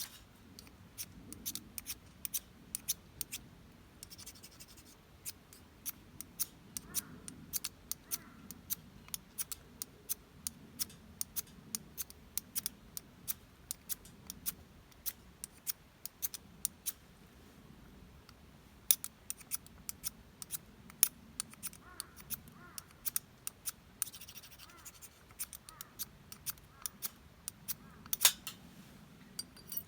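Wood fire crackling, with sharp irregular pops several times a second and a few louder snaps near the end, plus brief stretches of hiss.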